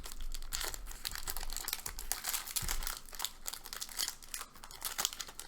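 Wrapper of a Series 1 baseball card pack crinkling and crackling as it is torn open and handled.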